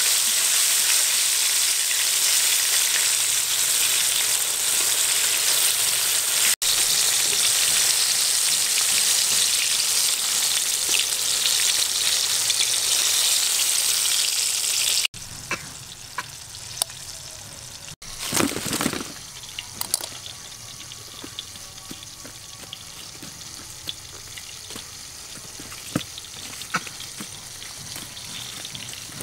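Wontons deep-frying in a wok of hot oil, the oil sizzling loudly and steadily. About halfway through the sizzle cuts off suddenly, leaving a much quieter stretch with scattered light clicks and one short louder noise.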